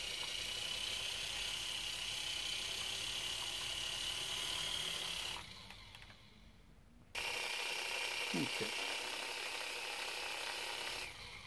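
Air Hogs Twin Thunder toy tandem-rotor RC helicopter, its small electric rotor motors running with a steady high whine. About five seconds in they stop for a second and a half, then start again.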